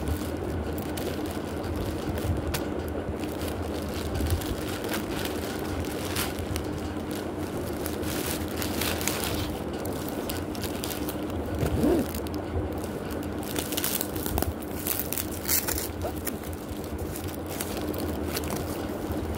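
A plastic mailer bag rustling and crinkling as it is handled and pulled off a cardboard-wrapped parcel, then hands working over the cardboard and bubble wrap. Irregular crinkles sit over a steady low hum.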